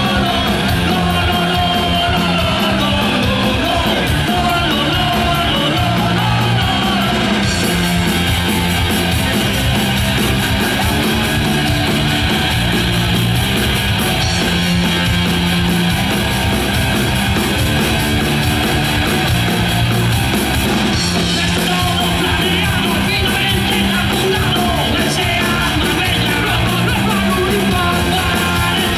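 Punk rock band playing live: two guitars and a drum kit, loud and steady throughout.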